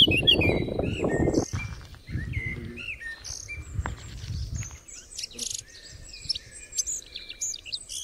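Several small birds chirping and calling, with many quick rising and falling notes. A low rumble sits under them in the first second and a half and again from about three to five seconds in.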